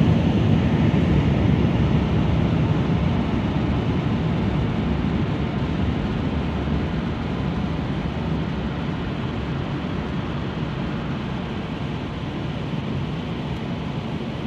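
Automatic car wash's blower dryer running, a steady rush of air heard from inside the car's cabin during the drying stage, slowly getting quieter.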